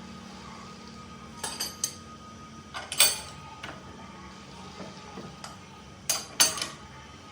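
Steel tools or workpiece parts clanking against metal at a manual lathe: about five sharp metallic clinks, the loudest about three seconds in and a quick pair a little after six seconds, over a low steady machine hum.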